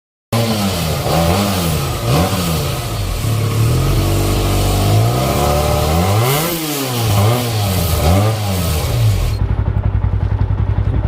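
Benelli 302S parallel-twin engine on its stock exhaust, revved again and again with the pitch rising and falling on each blip of the throttle, then settling to a steady, even idle about nine seconds in.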